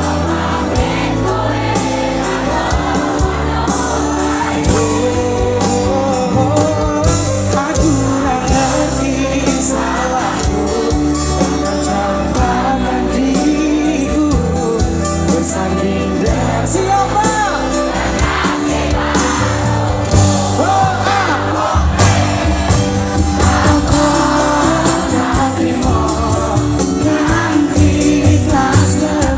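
Live band playing a Javanese pop song with singing, backed by electric and acoustic guitars, violin and drums.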